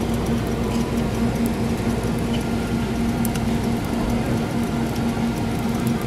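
Hotteok frying in oil on a flat iron griddle: a steady sizzle with a few faint ticks, over a steady low hum.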